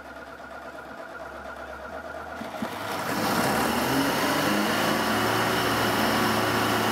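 Car engine running with no carburetor, fuel dripped from an IV drip bottle straight into the intake manifold. It runs steadily, gets louder about three seconds in, and its pitch shifts briefly as the drip tip is adjusted, since a millimetre's touch changes the revs.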